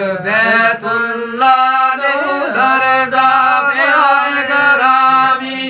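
Men's voices singing a Gojri bait unaccompanied, drawing out long held notes that waver and bend in pitch.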